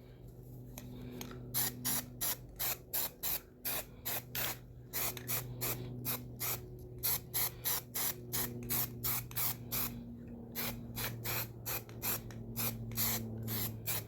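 Aerosol can of spray primer sprayed in many short, quick bursts, about three a second with a couple of brief pauses, over a low steady hum.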